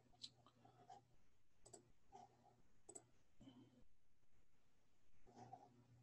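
Near silence with a few faint computer mouse clicks in the first three seconds, over a low room hum.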